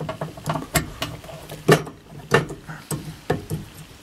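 Steel pliers clicking and scraping against the lock wire and bolt head of the gear linkage coupler as the wire is worked at: a string of irregular sharp metal clicks and short scrapes, several a second.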